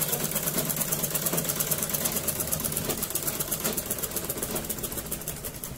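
Sewing machine stitching at speed along a petticoat hem, a fast, even clatter of needle strokes that eases off a little near the end.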